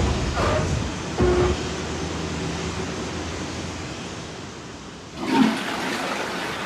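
Large hangar sliding door rumbling shut, with a brief squeal and a bump about a second in, followed by a steady rushing noise that slowly fades. A sudden whoosh comes about five seconds in.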